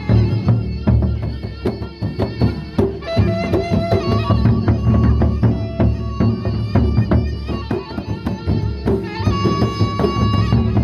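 Gendang beleq ensemble playing: large Sasak double-headed barrel drums struck by hand on one head and with a stick on the other, in a fast, dense rhythm. Held ringing tones sound above the drumming, strongest near the end.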